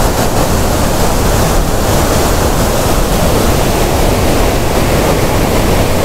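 Upper Düden Waterfall pouring over its rock ledge at close range: a loud, steady rush of falling water.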